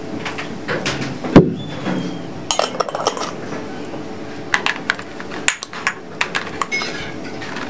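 Small glass jars and their lids clinking and knocking as they are handled and set down on a tray, in scattered clusters of sharp clicks. The loudest is a single knock about a second and a half in.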